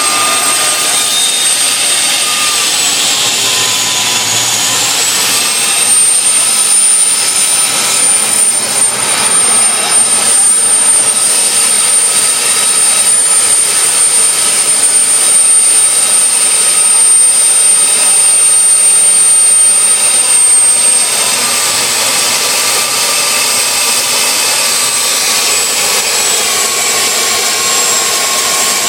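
Homemade jet engine running with a loud, steady rush and a high-pitched whine. The whine dips in pitch about three seconds in, climbs back a couple of seconds later, and drops slightly again about twenty seconds in.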